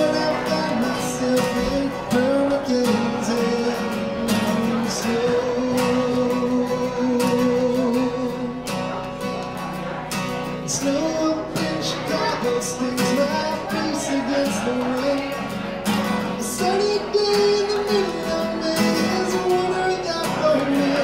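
A man sings a song while strumming an acoustic guitar, his voice picked up by a microphone and amplified through a small PA.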